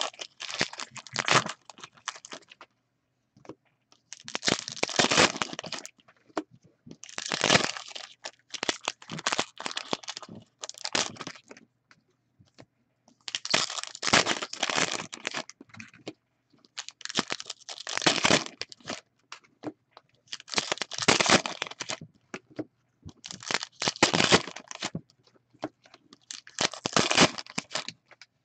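2015-16 SP Authentic hockey card packs being torn open, their wrappers crinkling and crackling in bursts of a second or two, every few seconds.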